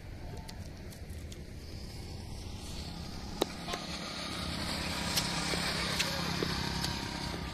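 A motorcycle riding past on the road, its engine hum coming up about four seconds in and easing slightly near the end, over a steady low outdoor rumble, with a few sharp clicks.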